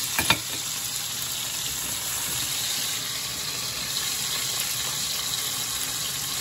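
Chicken breasts frying in butter and olive oil in a stainless steel sauté pan, a steady sizzle. Two sharp clicks sound just after the start.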